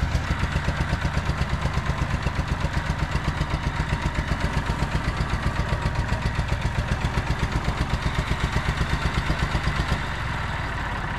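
Massey Ferguson turf tractor's three-cylinder diesel engine running rough with a rhythmic pulsing beat, firing on only two cylinders because its fuel system is blocked up. Near the end the beat evens out into a steadier run.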